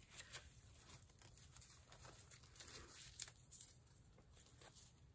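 Near silence: faint room tone with a scattering of small, faint ticks.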